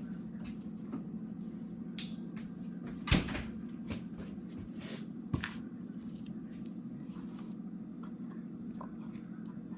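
Scattered knocks and clatters of a cupboard being opened and shut and things moved about in it, the loudest knock about three seconds in, over a steady low hum.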